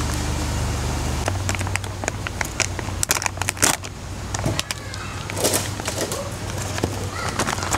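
A plastic noodle bag crinkling and crackling as it is torn open and pulled apart by hand, with a few louder rips. A steady low hum runs underneath.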